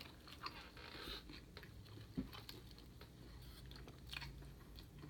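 Faint, close-up chewing of food, with soft, irregular crunches and mouth clicks.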